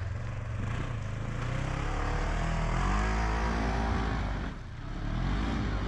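Side-by-side UTV engine revving, its pitch rising and falling, easing off briefly about four and a half seconds in before climbing again.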